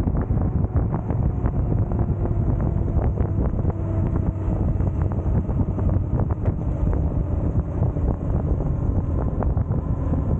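Yamaha inline-four sportbike engine running at low speed, with heavy wind noise buffeting the camera microphone over it.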